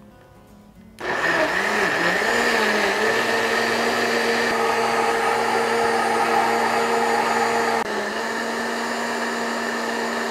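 Countertop blender switched on about a second in and running, pureeing spinach leaves in vegetable broth. Its motor whine wavers in pitch at first, then holds steady, a little quieter for the last couple of seconds.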